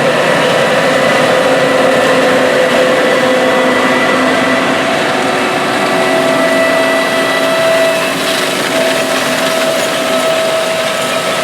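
Large Case IH farm machine working in the field: a steady engine and machinery drone with several whining tones that shift partway through, slightly quieter after about eight seconds.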